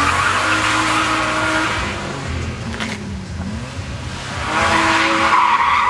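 BMW sedan sliding through a drift: the engine revs rise and fall over a hiss of skidding tyres. The tyre noise is loudest near the start, eases off in the middle, and swells again from about four and a half seconds in.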